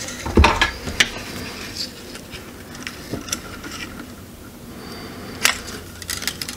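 Small clicks, taps and a dull knock of hand tools being handled against a circuit board as copper desoldering braid and a soldering iron are set onto a solder joint. The knock comes about half a second in, with sharp clicks near one second and again near the end.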